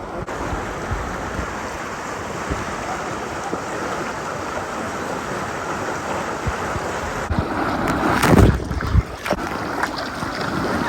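Wind buffeting the microphone over rushing water on a moving jet ski, with a loud burst of wind and spray about eight seconds in.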